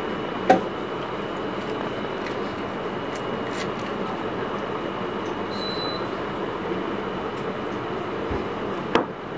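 Steady airy whir of a fan or blower with a thin high whine over it, broken by a sharp click about half a second in and another near the end.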